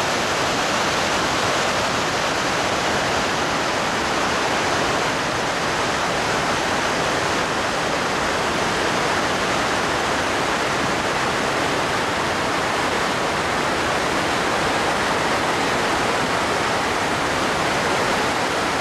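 Steady rushing of whitewater pouring over a rocky waterfall and rapids, with no breaks.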